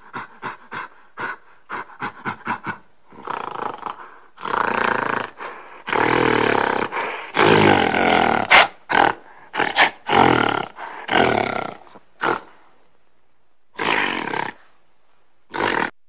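Gorilla vocalizing: a quick run of short calls, about four a second, builds into a string of longer, loud calls in the middle, followed by a few single short calls near the end.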